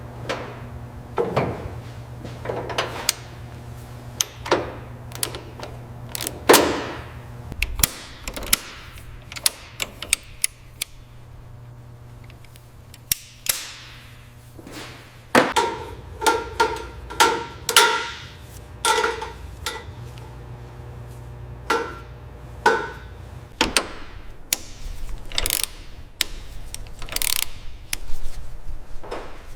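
Irregular metallic knocks, taps and clanks of hand tools on metal, some blows ringing briefly, over a faint low hum.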